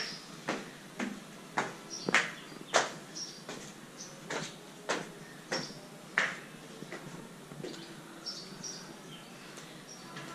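Footsteps climbing a stairway and walking out onto a hard terrace floor: sharp, regular steps about every two-thirds of a second, growing softer after about six seconds.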